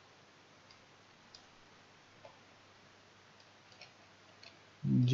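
A few faint, irregularly spaced clicks of a computer mouse and keyboard over quiet room tone, as settings are entered in a software dialog. A man's voice begins near the end.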